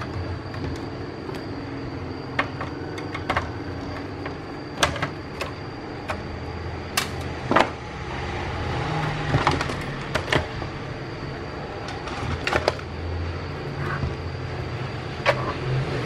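Irregular sharp clicks and knocks of parts and tools being handled while an induction cooktop is taken apart on a repair bench, over a steady low hum and a faint high-pitched whine.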